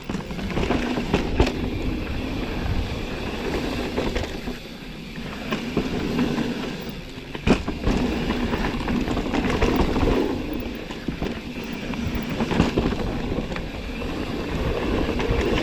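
Mountain bike descending a rough dirt trail: steady tyre noise and the bike's rattle over roots and rocks, with sharp knocks about one and a half and seven and a half seconds in.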